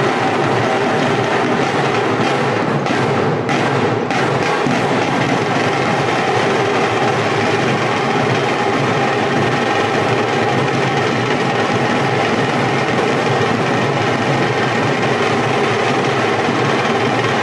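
A group of shoulder-slung cylindrical drums beaten with sticks in dense, continuous, loud drumming, the accompaniment to a Veeragase folk dance.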